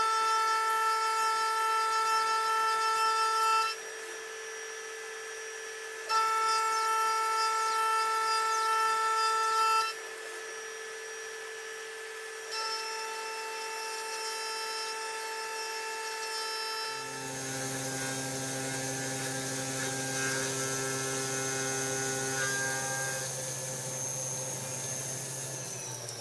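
CNC vertical machining centre milling, heard as steady high-pitched tones from the spindle and cutter in passes a few seconds long, with a steady tone under them. Later the machine settles into a lower steady hum, and a high whine falls in pitch at the very end.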